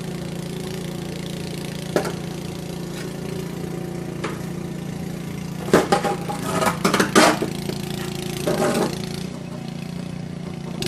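An engine running steadily. Over it come a sharp knock about two seconds in and bursts of clattering knocks around six to seven seconds and again near nine seconds.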